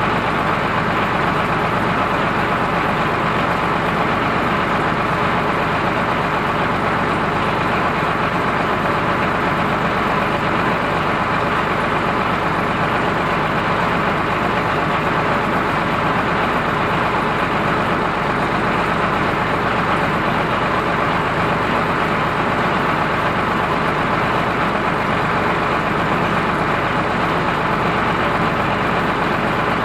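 Ford 3600 tractor's engine running steadily at a constant speed, heard close by.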